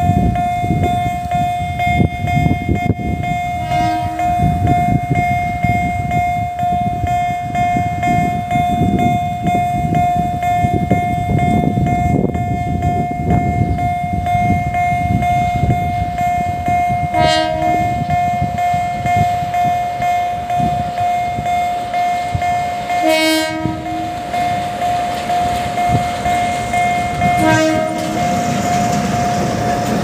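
A level-crossing warning signal sounds a steady tone while a small narrow-gauge sugar-cane railway diesel locomotive approaches, giving four short horn blasts. Its engine and wheels grow louder near the end as it reaches the crossing.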